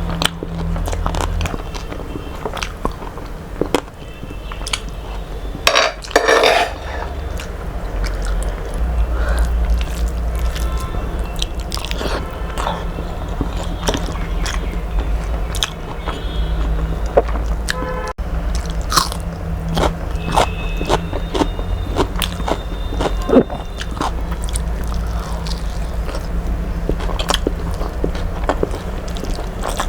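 A person eating close to the microphone: steady chewing and biting with many small wet mouth clicks and smacks, over a steady low hum.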